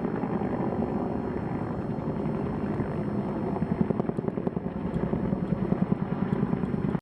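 AH-1Z attack helicopter running, its rotors beating steadily, with the beat growing stronger in the second half.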